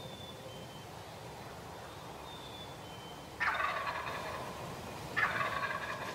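A wild turkey gobbler gobbling twice, the first gobble a little over three seconds in and the second about two seconds later, each a rapid rattling call of about a second.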